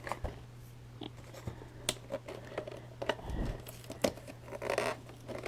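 Packaging being handled and crinkled as a collection box is opened: scattered clicks and crinkles, with a dull thump about three seconds in. A steady low hum runs underneath.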